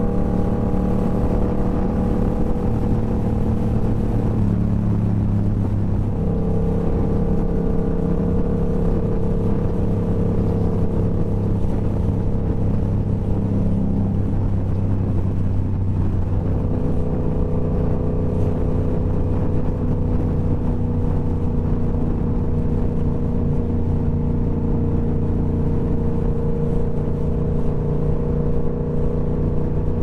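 Yamaha YZF-R7's parallel-twin engine through a Toce full-system exhaust, running steadily under way. The note changes briefly about four seconds in and again about fourteen seconds in.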